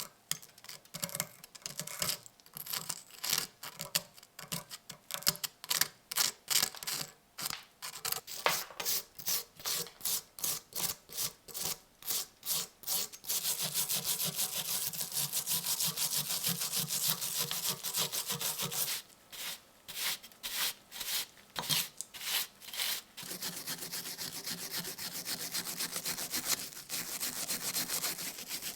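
A hand tool scraping a rusty metal piece in back-and-forth strokes, about two a second. About halfway through it becomes fast, continuous scrubbing, turns back to slower strokes for a few seconds, then speeds up again.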